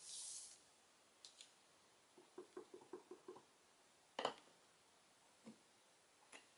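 Faint handling of a clear acrylic stamp block and a plastic Stamp-a-ma-jig positioner on a craft table: a brief hiss of something sliding at the start, a quick run of light taps, and one sharper click a little after four seconds as the block is set against the positioner.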